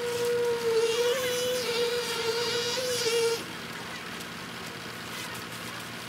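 A steady high-pitched machine whine with overtones, wavering slightly in pitch, that cuts off suddenly about three and a half seconds in. After it stops, a lower steady engine hum from the trucks at the pour remains.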